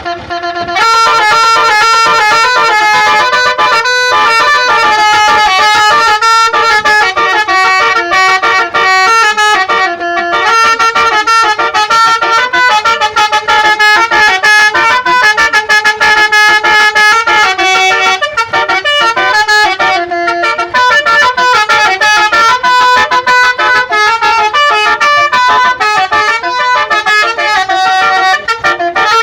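Basuri-style six-note telolet horn module sounding its bus horn trumpets in a fast melody: chords of steady horn tones that step from note to note, loud, starting about a second in.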